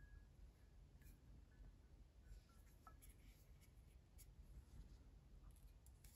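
Near silence, with faint scattered ticks and light rubbing from a hand handling a glass whisky bottle and its stopper cap.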